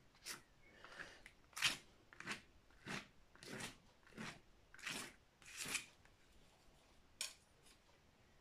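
Paintbrush scrubbing paint onto a canvas: a run of short scratchy strokes about every two-thirds of a second, then a pause and one last stroke near the end.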